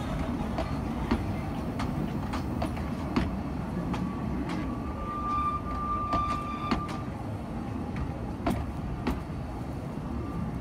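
Narrow-gauge passenger carriages rolling slowly past: a steady low rumble with irregular clicks of the wheels over rail joints, and a thin high squeal for about two seconds midway.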